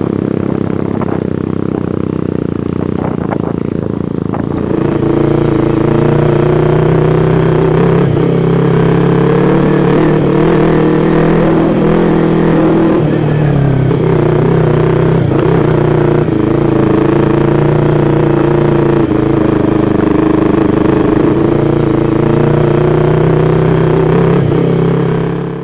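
Motorcycle engine running steadily on a ride, a continuous drone that gets louder about four and a half seconds in.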